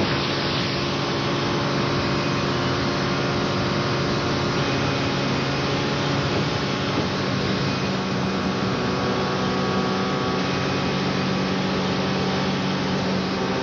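Motorboat engine running steadily on the water, holding an even pitch and level throughout.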